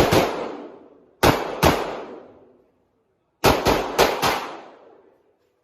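Handgun shots fired in quick pairs: two at the start, two more a little over a second later, then a fast string of about five shots past the middle. Each shot has an echoing tail.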